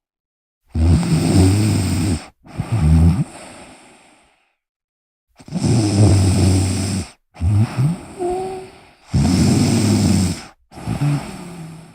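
A person snoring loudly: six long snoring breaths in about eleven seconds, each cutting off abruptly into silence, with a longer pause after the second.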